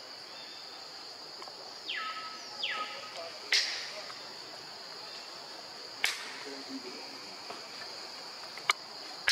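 A steady high-pitched insect chorus, with two quick falling calls about two seconds in and a few sharp whip-like cracks, the loudest in the middle and at the end.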